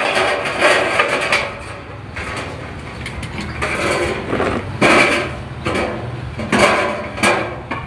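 Irregular metal knocks and clanks as a sheet-metal roof gutter is hammered and handled, a few of the strokes ringing briefly.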